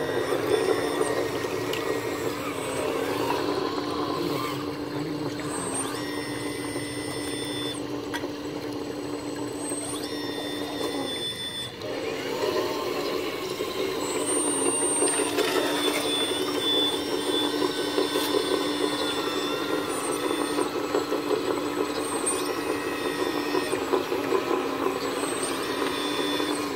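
Hydraulic pump and drive of a Metalhobi Hidromek H4 500 RC excavator running with a steady hum, as the boom and bucket dig gravel. High-pitched whines switch in and out as the controls are worked. The hum dips briefly near the middle. The rushing of a shallow stream runs underneath.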